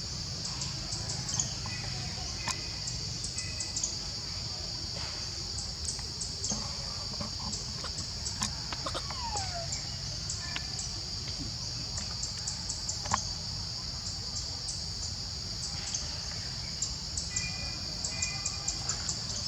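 Steady high-pitched drone of insects with rapid ticking on top, over a low rumble. There are scattered clicks, a few short chirps, and one brief falling squeak about nine seconds in.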